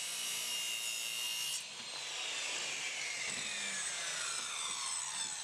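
Corded circular saw cutting through a 2x4 with a steady high whine. About a second and a half in the cut ends and the trigger is released, and the blade's whine falls steadily in pitch as it spins down.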